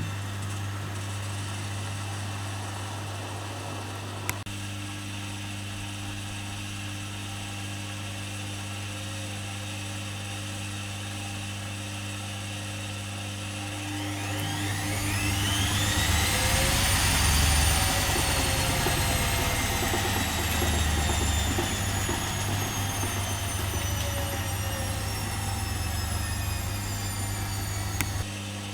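Privileg Dynamic 4612 washing machine with a steady low hum and a single click. About halfway through, the drum motor speeds up with a rising whine, which then sinks slowly and cuts off with a click near the end.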